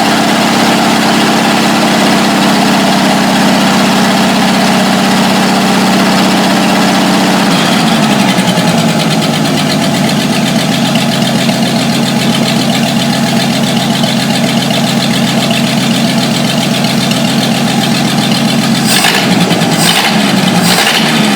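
1949 Studebaker 2R5 pickup's flathead six-cylinder engine idling steadily after a vacuum leak repair. About eight seconds in the engine speed drops from a fast idle to a slower, even idle, and near the end a few sharp knocks sound over it.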